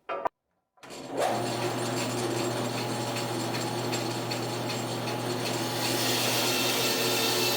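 Electric shop power tool switched on about a second in and running steadily with a constant motor hum. From about six seconds in the sound turns brighter and a little louder as wood is worked against it.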